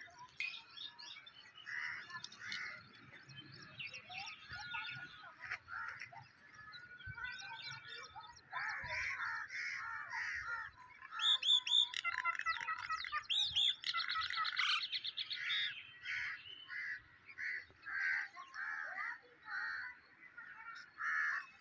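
Several birds chirping and calling at once: many short chirps and whistles, a fast trill about two-thirds of the way through, and one call repeated roughly once a second near the end.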